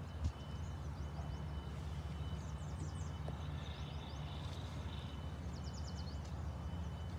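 Outdoor ambience: a steady low rumble, with small birds chirping in two quick runs of short high notes.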